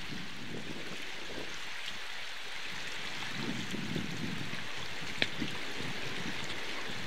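Steady rush of river water flowing over rocks, with a few low rumbles around four seconds in and a single sharp click a little after five seconds.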